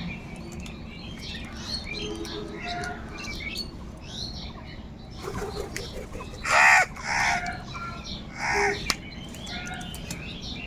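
Crows cawing: three loud, harsh caws in the second half, over a background of small birds chirping.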